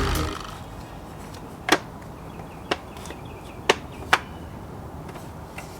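Background music cutting off at the start, then a low steady background with four short, sharp clicks spread about a second apart.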